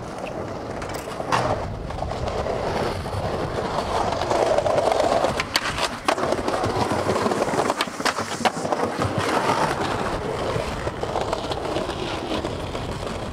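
Skateboard wheels rolling over a concrete plaza, a steady rumble that grows louder a few seconds in. Several sharp clacks of the board striking the ground and a ledge cut through it.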